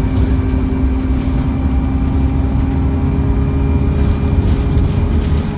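ADL Enviro200 bus engine running under way, heard from inside the bus: a steady deep rumble with a steady high-pitched turbo whine over it.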